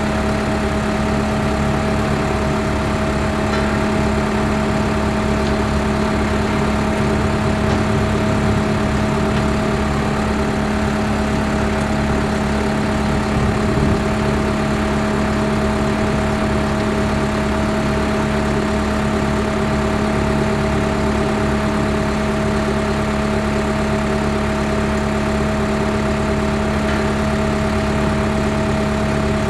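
Skid steer with a trimmer attachment running steadily, an unbroken engine hum with a steady pitched drone that holds the same pitch throughout.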